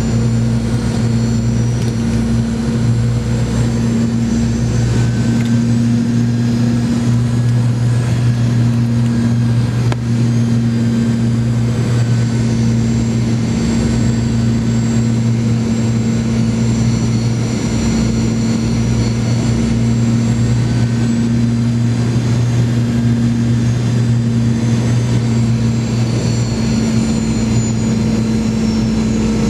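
Boeing 717 cabin noise at a window seat beside a rear-mounted Rolls-Royce BR715 turbofan during the landing approach: a steady low engine drone with a thin high whine above it.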